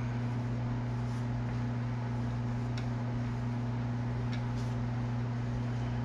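A small electric motor humming steadily, low and even, with a couple of faint light rustles.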